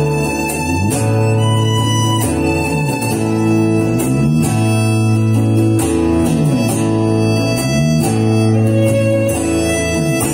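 Small acoustic band playing an instrumental passage: guitar, violin, electric bass and cajón. Several low notes slide up and down in pitch, and sharp cajón hits keep the beat.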